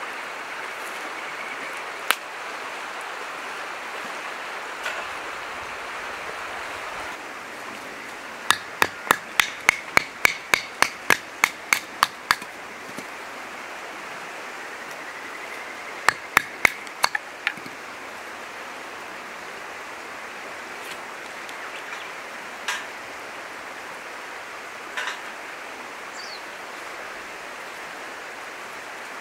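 Steady rush of a river. About a third of the way in comes a fast run of about a dozen hard knocks, three or four a second, and five more follow just past halfway.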